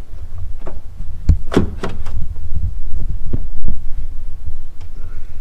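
Hands working a loosened halogen low-beam bulb out of a truck's headlight housing: scattered plastic clicks and knocks, with a low rumble of handling noise underneath.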